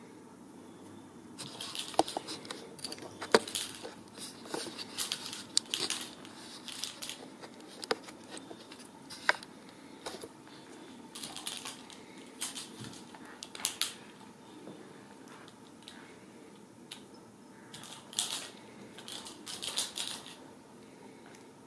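Kittens batting a small plastic ball toy on a string: irregular clicks, rattles and short scratchy rustles, coming in flurries with quieter gaps between.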